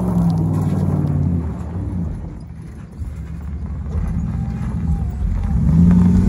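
Second-generation Dodge Ram pickup's engine running hard as the truck spins donuts on loose dirt. The engine sound fades about two seconds in, then builds again with rising revs near the end.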